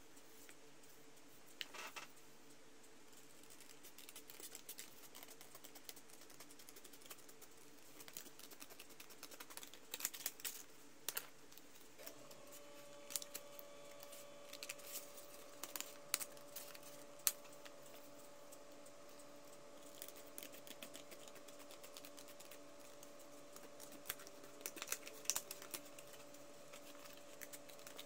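Scattered soft clicks, taps and rustles of stiff coloured card paper being handled, folded and pressed by hand. Underneath is a faint steady hum that steps up in pitch about twelve seconds in.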